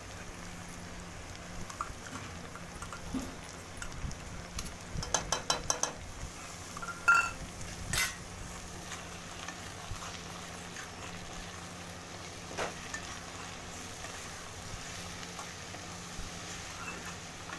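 Okra and onions frying in a steel kadhai with a steady sizzle, while a steel spoon scrapes and taps the masala paste out of a steel bowl and a spatula stirs the pan. A quick run of taps comes about five seconds in, then two sharp, ringing metal clinks, the loudest sounds.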